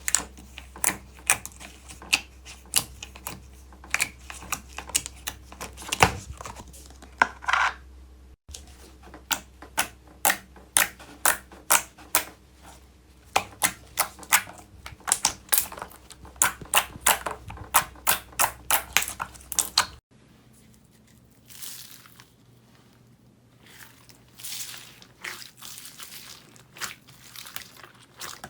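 Slime being pressed and worked by hand, giving rapid sharp clicks and pops. After a cut about two-thirds of the way in, the sound turns to softer, duller crackles.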